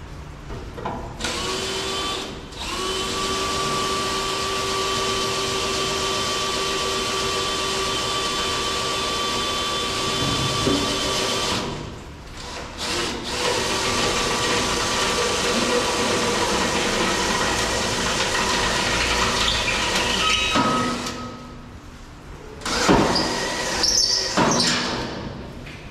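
Cordless drill boring holes in the metal of a snowplow truck's salt spreader hopper: a steady motor whine in two long runs of about ten and eight seconds with a short break between, then a few louder, rougher bursts near the end.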